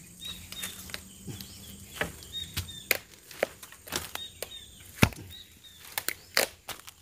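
Irregular strokes of a blade chopping into wood, about a dozen of them, with one much harder blow about five seconds in.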